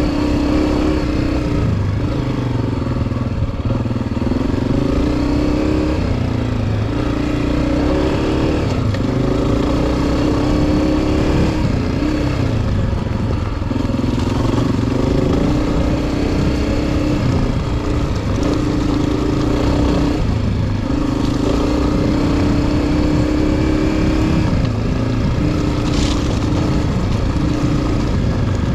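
Honda CRF250F dirt bike's single-cylinder four-stroke engine running under way, its pitch repeatedly climbing and then dropping back as the throttle is worked and gears change.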